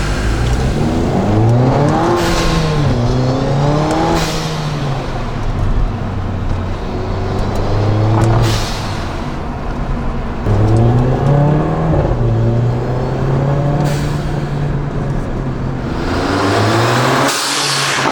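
Mercedes-AMG 45's 2.0-litre turbocharged engine accelerating hard through the gears, its pitch climbing and then dropping at each shift. Several times an aftermarket adjustable blow-off valve vents boost pressure with a loud whoosh between shifts.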